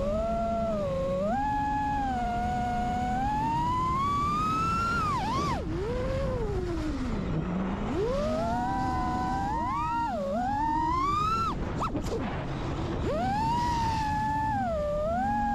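5-inch FPV quadcopter's iFlight Xing2 2306 brushless motors and tri-blade props whining, the pitch swooping up and down with the throttle and dropping sharply about seven seconds in as the throttle is cut, then climbing again. Wind rumbles on the onboard camera's microphone underneath.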